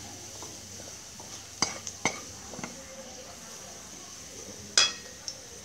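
Chopped aromatics sizzling in a little oil in a wok while a metal ladle stirs and scrapes them, knocking against the wok twice about a third of the way in and once more, loudest and with a brief metallic ring, near the end.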